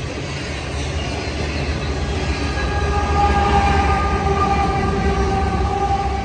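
CSX freight train of coal hopper cars rolling past close by: a heavy, steady rumble of wheels on rail. The sound grows louder about three seconds in as a mid-train diesel locomotive passes, and a steady high whine rides over the rumble in the second half.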